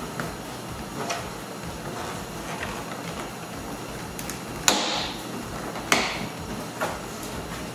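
Plastic retaining clips of a Dodge Journey liftgate trim panel snapping loose as the panel is pried off with a trim removal tool: a few faint clicks, then three sharp snaps in the second half, the first the loudest.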